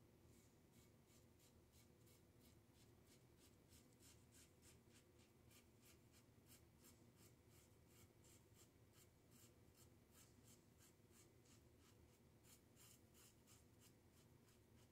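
Faint scratchy strokes of a Semogue boar-bristle shaving brush painting lather onto a bearded face, about three strokes a second.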